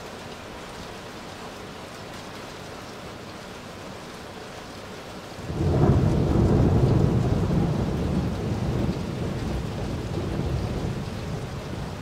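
Steady rain, then about five seconds in a long low rumble of thunder from a lightning strike about 3 km away sets in suddenly and rolls on, slowly fading.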